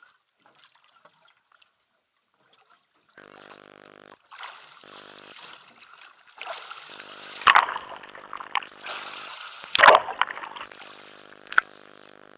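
Water splashing, with two loud splashes about two and a half seconds apart and a sharp click near the end, over a steady low hum that cuts in and out.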